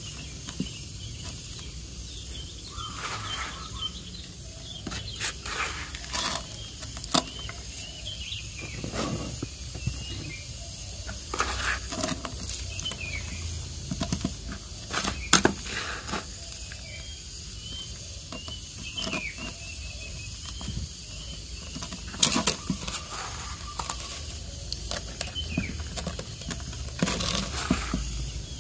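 Hands scooping and pressing loose, fibrous potting medium into an enamel bowl: irregular soft rustles and crunches at uneven intervals.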